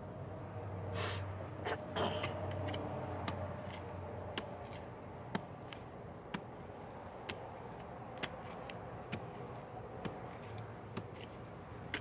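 A hand trowel digging into dry, hard, clumpy soil: short sharp scrapes and knocks of the metal blade in the dirt, coming about once a second after the first few seconds.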